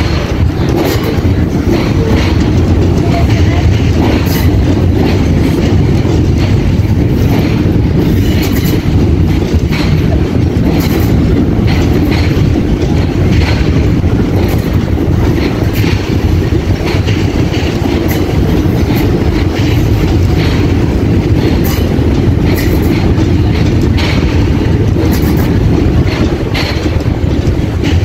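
Southeastern electric train crossing a riveted steel truss railway bridge: a steady low rumble with frequent clicks of the wheels over the rail joints.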